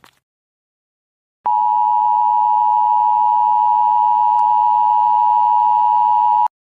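A single loud, steady electronic beep tone at one pitch, like a broadcast test or off-air tone. It starts abruptly after about a second and a half of dead silence, holds unchanged for about five seconds, and cuts off suddenly.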